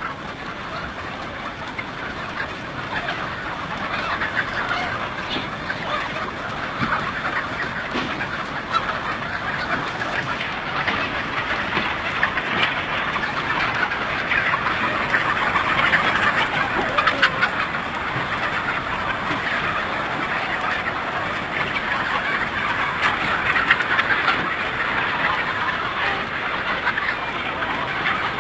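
A large flock of desi chickens clucking and squawking all at once, a dense continuous din that grows louder over the first few seconds.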